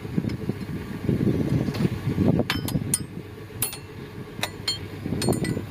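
Sharp metal clinks, about seven in the second half, as a socket and wrench knock against steel fuel-injection lines and fittings on a diesel engine, over a steady low rumble.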